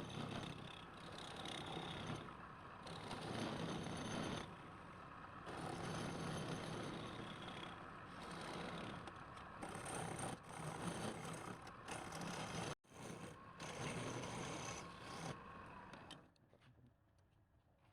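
Scraping and rubbing from workshop hand work on wood or metal, in several abruptly cut segments, falling away to faint background near the end.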